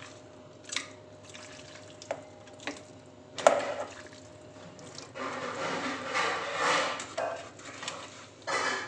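Washed raw beef chunks being tipped and pushed by hand from a metal bowl into a small pressure cooker: a few wet knocks and plops, the sharpest about three and a half seconds in, then a longer run of wet squelching and scraping from about five seconds in.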